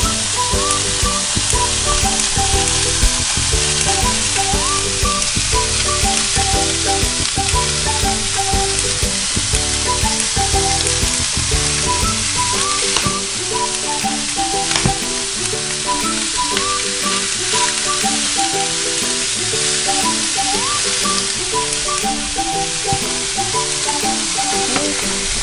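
Diced chicken and turkey patty pieces sizzling steadily in a hot frying pan, with kitchen scissors snipping and a fork stirring and tapping in the pan now and then.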